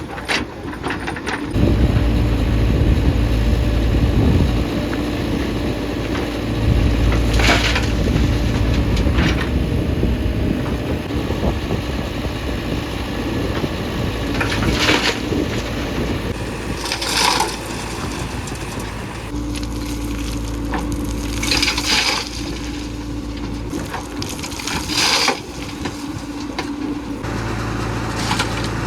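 JCB 3DX backhoe loader's diesel engine working under load, its revs rising and falling as the machine digs and loads, with sharp metallic clanks and knocks every few seconds.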